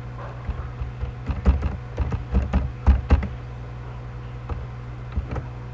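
Keystrokes on a computer keyboard in irregular quick runs, pausing about three and a half seconds in, with a few more strokes near the end, over a steady low hum.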